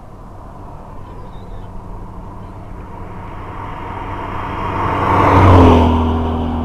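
Motorcycle engine running, growing louder to a peak about five and a half seconds in, then settling into a steady idle.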